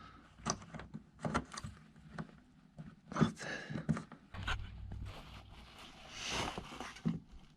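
Scattered clicks and scrapes of plastic side-skirt mounting clips being handled and pressed into place on the car's sill, with a low rumble about halfway through and a rustling hiss near the end.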